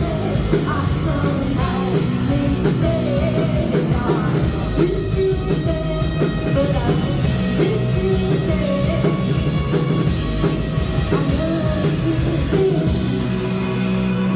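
Live rock band playing a song: singing over a full band with drum kit.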